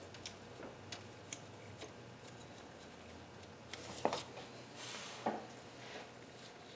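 Hand tools and loose metal parts lightly clicking and tapping during engine work, with a couple of louder knocks about four and five seconds in.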